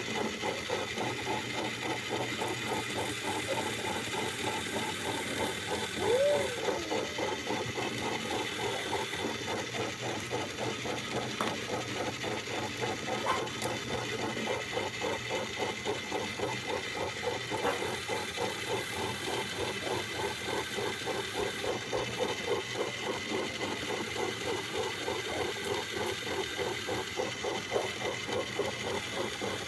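Small battery motor of an egg-decorating spinner turning an egg, running steadily with a regular pulsing rattle. About six seconds in there is a brief hummed note.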